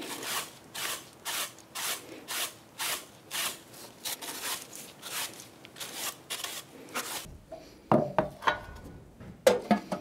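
A long-handled bristle brush scrubbing back and forth across the cut tops of log stumps, about two strokes a second. A few sharp knocks follow near the end.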